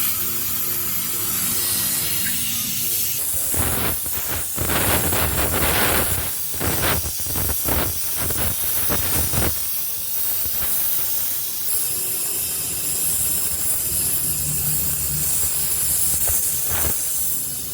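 Welding on a cracked motorcycle alloy wheel rim: a steady hiss throughout, with a stretch of irregular crackling from about four to ten seconds in.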